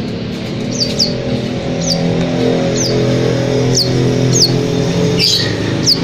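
A young caged songbird calling with short, high chirps that slide downward, repeated about once a second, over a low steady hum.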